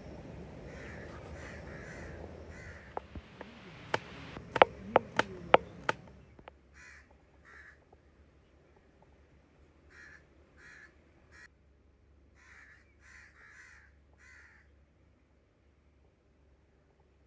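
Crows cawing, short harsh calls repeated in loose groups of two to four. In the first six seconds a rustling noise runs under them, and about four to six seconds in comes a run of sharp knocks, the loudest sounds of all.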